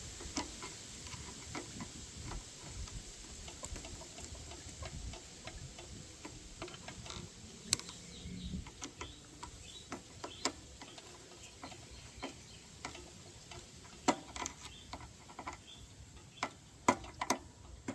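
Irregular small clicks and light taps of hand tools and small metal parts being handled, with a few sharper knocks near the end, over a faint low rumble.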